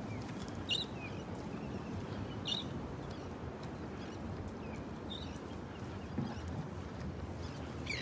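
Gulls calling overhead: a few short, sharp calls about two to three seconds apart, over a steady low rumble.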